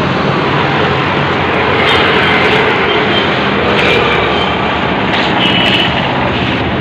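Busy street traffic noise: a steady, loud mix of engine hum and road noise from auto-rickshaws and motorbikes.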